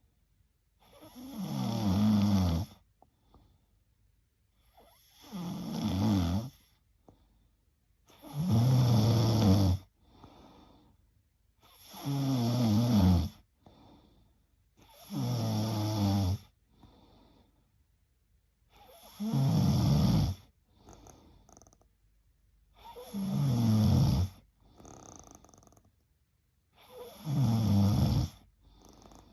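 A young woman snoring in her sleep: eight snores about every four seconds, each about a second and a half long and falling in pitch, with faint breathing between them.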